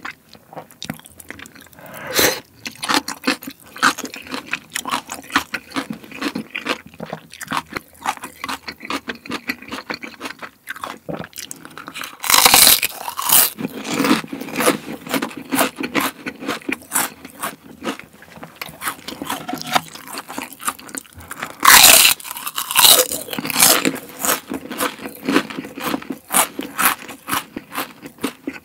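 Close-miked chewing and crunching of food, wet mouth sounds mixed with crisp crunches. Two spells of much louder crunching come about 12 and 22 seconds in.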